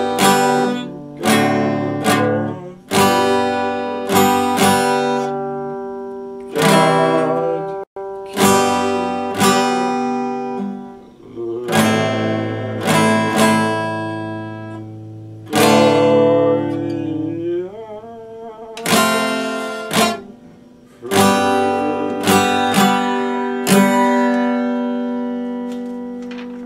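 Epiphone acoustic guitar strummed in single chords, each chord struck sharply and left to ring and die away before the next, roughly every one to two seconds. The last chord rings out and fades near the end.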